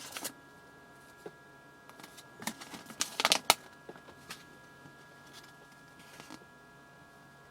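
Hands handling small objects: scattered light clicks and rustles, with a cluster of louder clicks about three seconds in.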